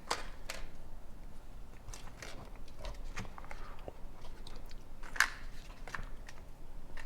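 Light plastic clicks and crackles of a Kinder Joy egg and its toy capsule being handled and opened, with a few sharper ticks about half a second in and about five seconds in.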